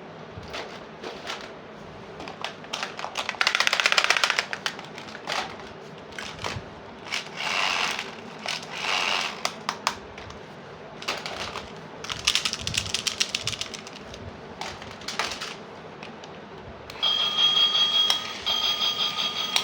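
Small plastic toy playset pieces handled, with rapid clicking and rattling in several short bursts. Near the end a toy starts sounding a steady run of repeating electronic beeps.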